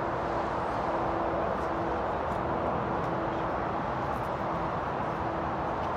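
Steady rush of motorway traffic passing below, tyres and engines blending into one continuous noise.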